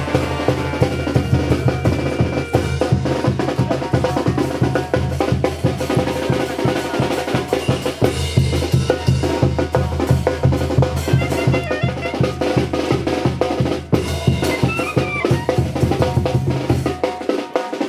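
Band music for the dance: drums beating a steady, fast rhythm with horns playing over them.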